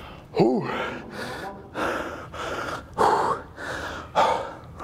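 A man breathing hard from exertion after a heavy set: quick, forceful breaths about every half second, with a short grunt near the start.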